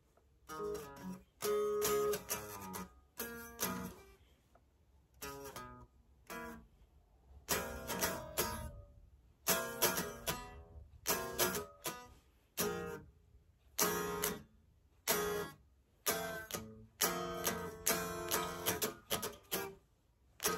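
Electric guitar strummed in short, choppy chord strokes, in bursts with brief pauses between them.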